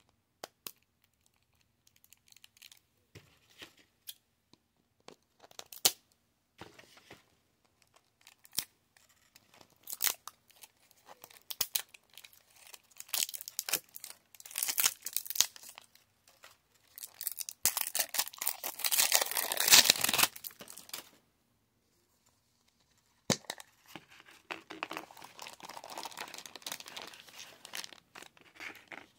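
Thin plastic wrapping being peeled and torn off a plastic toy egg: scattered crinkles and snaps, building a little past halfway into a dense stretch of crinkling and tearing, the loudest part. A short pause follows, then more crinkling.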